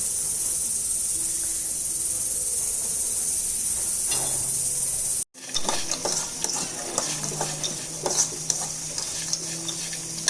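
Masala peanuts sizzling steadily in hot oil in a pan. After a brief cut about five seconds in, a spoon stirring them adds irregular clicks and scrapes over the sizzle.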